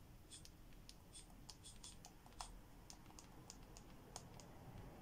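A dozen or more faint, irregular light clicks of the S Pen's tip tapping on the Samsung Galaxy Tab S6 Lite's glass screen.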